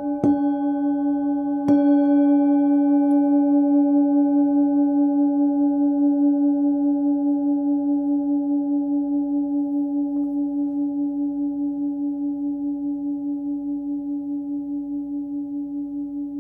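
A 16.5 cm hand-forged singing bowl, pitched at about 290 Hz (between C# and D), is struck twice about a second and a half apart, then rings on with a regular pulsing wobble and slowly fades.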